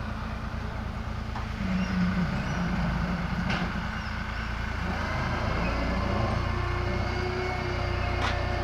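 Massey Ferguson 260 tractor's diesel engine running under load as it hauls a brick-laden trailer over rough dirt, with a low steady drone that surges about two seconds in and grows louder from about five seconds in.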